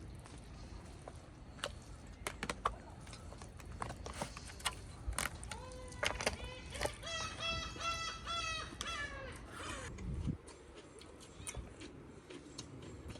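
A bird gives a quick run of short, repeated honking calls for a few seconds midway, among scattered light clicks and taps.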